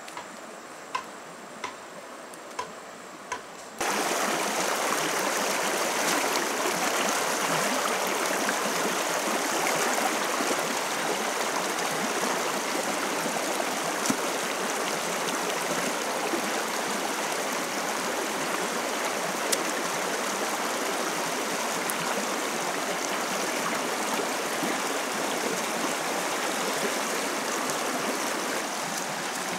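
Stream water rushing steadily through a gap in a rock weir and over a woven fish trap, starting abruptly about four seconds in. Before that, a quieter stretch with light regular ticking, a little under two a second.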